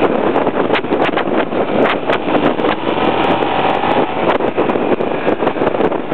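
Wind buffeting the microphone of a camera riding on a moving motorcycle, with the motorcycle's engine running underneath at road speed.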